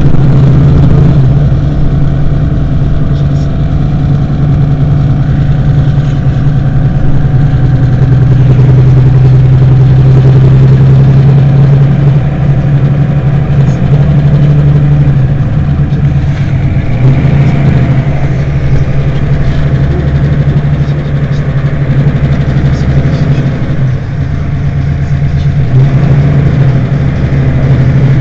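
Mercedes-Benz Citaro city bus engine idling at a standstill: a loud, steady low hum.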